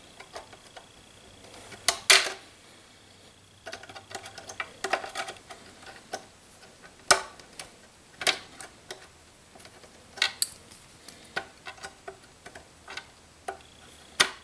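Irregular small clicks and taps of ball link pliers and hard plastic and metal RC helicopter parts being handled as the tail push rod's ball link is worked onto its ball. The loudest click comes about two seconds in.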